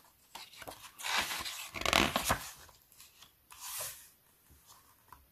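A page of a picture book being turned: a paper rustle that builds about a second in and is loudest around two seconds, then a lighter brush of paper near four seconds as the page settles.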